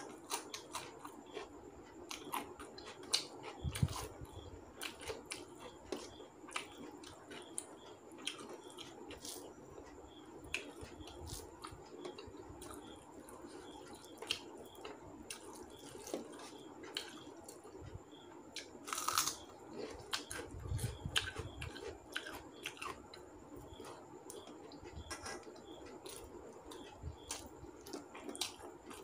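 Close, wet eating sounds of a person eating rice and curry by hand: chewing and small mouth clicks, with fingers mixing and scooping rice on a steel plate. A sharper crackle comes about two-thirds of the way through, with a couple of low thumps.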